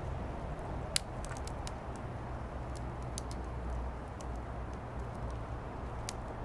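Firewood burning in a fire pit, crackling with sharp irregular pops, one louder snap about a second in, over a steady low rumble.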